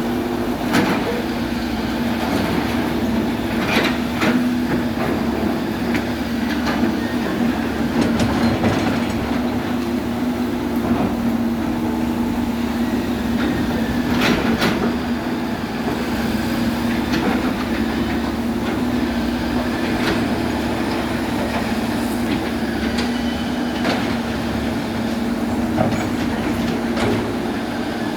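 Excavator's diesel engine running steadily under load, with occasional sharp metal clanks from the bucket and tracks.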